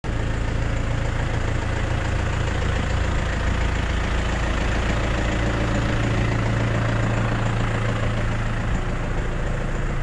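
Tractor engine idling steadily, a low, even drone with no change in speed.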